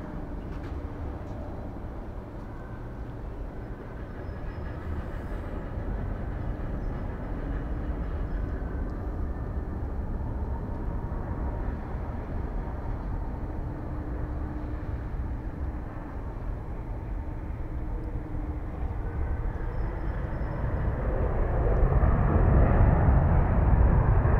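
Jet engines of an ANA Boeing 787 (Rolls-Royce Trent 1000) rumbling steadily as the airliner comes in on final approach and touches down. The rumble grows much louder near the end during the landing roll, with the spoilers raised.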